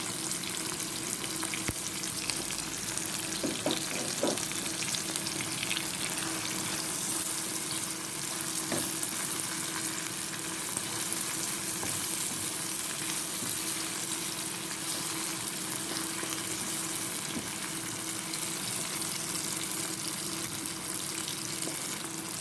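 Tomatoes, scotch bonnet pepper and spices sizzling steadily in a cooking pot, with a few light knocks from a spoon.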